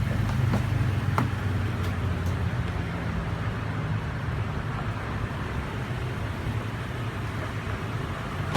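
Steady low hum of a motor vehicle engine running, with a few light clicks in the first second or so.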